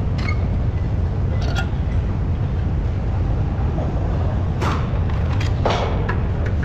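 Steady low machinery hum, with a few short metallic clinks from tools and parts being handled on a steel front steering knuckle and hub, the clearest about four and a half and five and a half seconds in.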